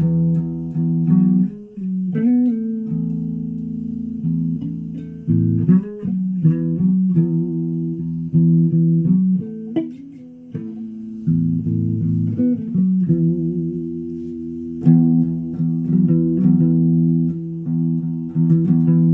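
Low notes on a string instrument, held long and sliding up and down in pitch between them, with a few sharp plucked attacks.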